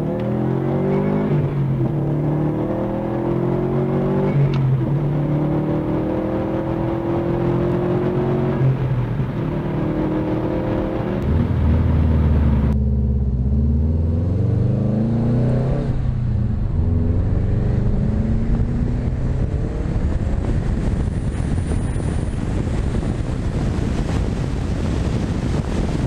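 2017 Subaru WRX STI's turbocharged flat-four accelerating through the gears on a muffler-delete axle-back exhaust, with the stock intake. The engine note climbs in pitch and drops back at each gear change, several times, then settles to a steadier note. About halfway through, the sound switches from inside the cabin to a camera outside the car, where the exhaust note is deeper and heavier.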